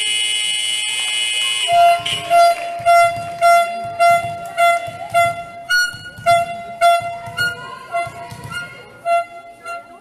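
A loud, steady buzzer sounds for about two seconds and cuts off sharply. Then music with a steady beat of about two pulses a second plays over the hall's speakers.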